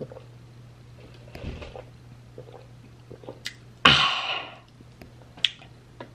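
A man sipping a drink through a straw with small slurping noises, then one sudden loud breathy burst from his mouth about four seconds in, which he follows with "excuse me". A low steady hum sits underneath.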